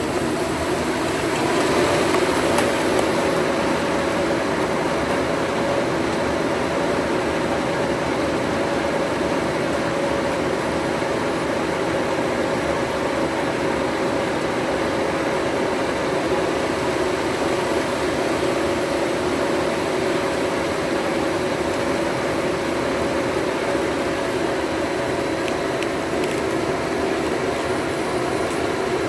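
An engine running steadily at constant speed, an even hum with no change in pitch or load.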